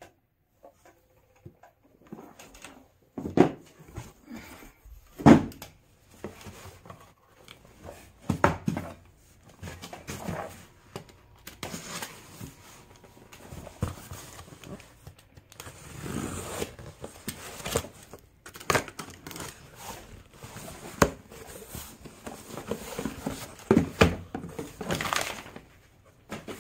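Cardboard puzzle boxes and a cardboard shipping carton being handled, starting about two seconds in: irregular knocks and thumps as boxes are set down on a wooden floor, with rustling and scraping of cardboard as the carton's flaps are opened.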